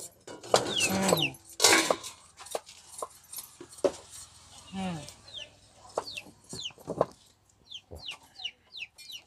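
Chickens clucking, with many short, high, falling bird chirps through the second half.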